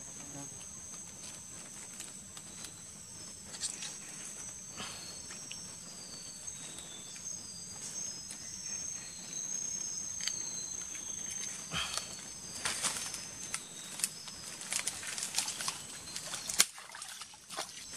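Insects drone steadily in two high pitches, with short falling chirps in the middle. From about twelve seconds in, dry leaf litter and twigs rustle and crackle under someone's hands and feet.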